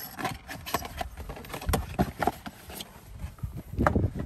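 Irregular light clicks and knocks of hands handling plastic car parts in a dashboard footwell, with a couple of duller thumps.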